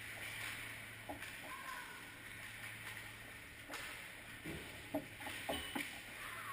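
Ice hockey rink sound: skates scraping and hissing on the ice, with a few sharp clacks of sticks and puck, loudest about five seconds in. A low steady hum runs underneath.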